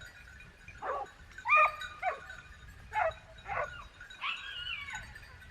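A dog giving a run of short, high-pitched yips, about six in quick succession, with one longer drawn-out whining call a little past four seconds in.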